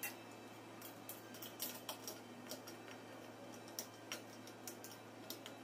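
Faint, irregular small clicks and taps of metal parts and an Allen key being handled while the cylinder and piston assembly of a PCP air compressor is put back together.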